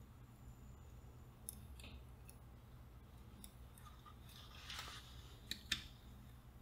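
Faint, scattered small clicks and scratches of a new electrolytic capacitor's thin wire leads being handled and fitted into a transistor radio's circuit board by hand, with a brief brushing sound and two sharper clicks near the end.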